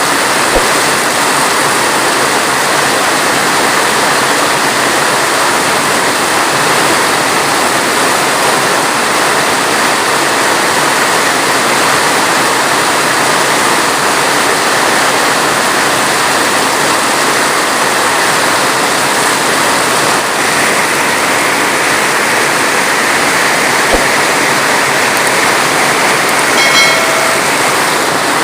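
Heavy rain falling in a dense, steady hiss. Near the end there is a brief, short pitched sound.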